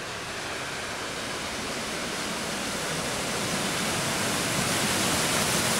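A car driving through deep floodwater, its wheels throwing up a steady rushing spray of water that grows gradually louder as it approaches.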